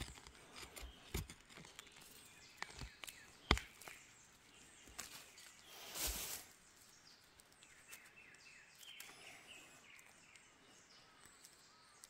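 Small hand hoe digging into forest soil and leaf litter: scattered scrapes and knocks, with one louder rustling scrape about six seconds in.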